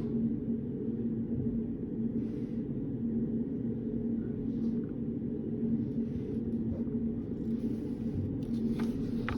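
Steady low hum of a reading room's background noise, with faint soft rustles every second or two and a few light clicks near the end.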